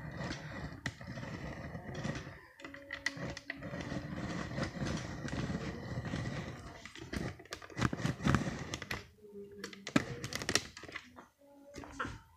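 Rustling handling noise with scattered clicks and knocks, coming thickest about seven to ten seconds in.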